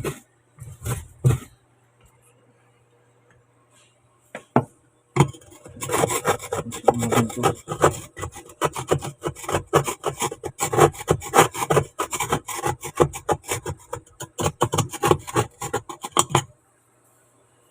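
Rapid back-and-forth scrubbing of a washing machine's drain part, rubbing off built-up dirt. A few handling knocks come first; the scrubbing starts about five seconds in and stops shortly before the end.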